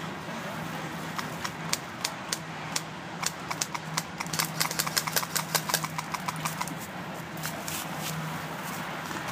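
Airsoft guns firing: sharp clicking shots, scattered at first, then coming thick and fast in rapid strings for a couple of seconds before thinning out, over a steady low hum.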